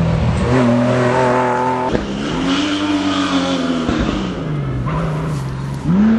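Car engine being driven hard: its pitch rises and falls several times as the revs change, with a sudden jump in revs and loudness near the end.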